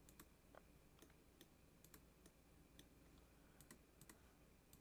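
Faint, irregular clicks of a computer mouse and keyboard over near-silent room tone.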